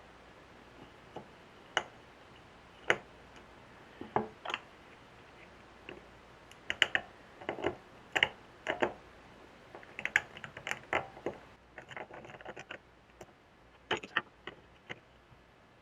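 Small metal carburetor parts and a hand tool clicking and tapping against each other as the Mikuni carburetor is worked apart: scattered sharp clicks, single at first, then in quick clusters in the middle and again near the end.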